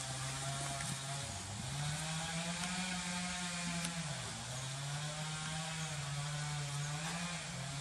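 A small engine running steadily, its pitch drifting slowly up and down with two brief dips.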